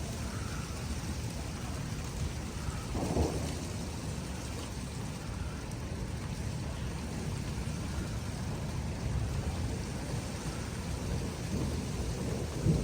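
Steady rain falling through a thunderstorm, with low thunder rumbling underneath. A short louder burst comes about three seconds in, and the thunder swells near the end.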